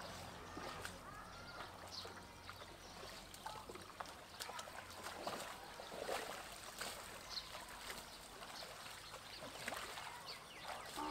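Shallow muddy water splashing and sloshing irregularly as people wade through it, dragging a mosquito net.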